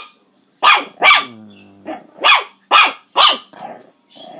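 Long-haired Chihuahua puppy barking: about six short, sharp, high yaps, irregularly spaced.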